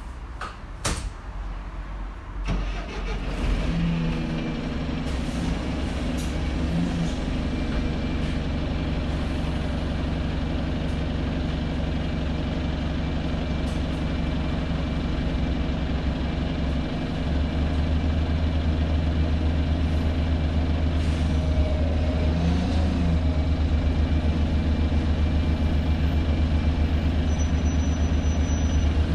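Alexander Dennis Enviro 200 MMC bus's diesel engine starting up about two and a half seconds in and settling into a steady idle, heard from inside the saloon. The low hum steps up louder a little past halfway.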